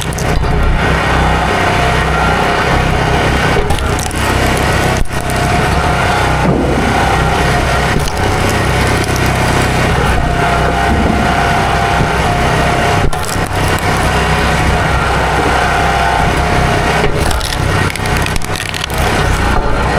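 Chainsaw running at full throttle, cutting low through a tree stump, with a few brief dips in the sound.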